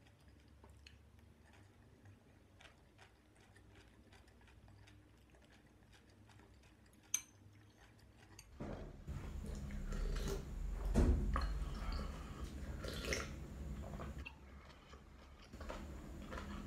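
Close-up eating of spicy instant noodles: faint chewing, a single sharp clink of the metal spoon against the glass bowl about seven seconds in, then from about halfway through a long stretch of loud slurping and chewing of noodles that eases near the end.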